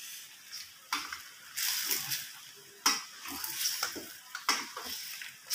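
A metal spatula stirring chicken curry in a stainless steel pan, scraping against the metal in a run of irregular strokes, with a light sizzle from the simmering gravy.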